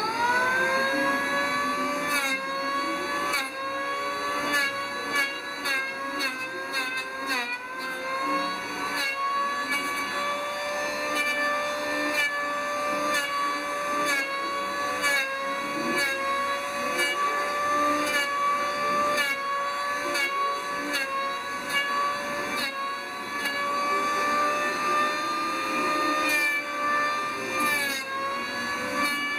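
Handheld electric power planer spinning up at the start, then running with a steady high whine while it shaves the edges of wooden hull frames. Its pitch sags briefly each time the blades bite into the wood, with scratchy cutting noise between.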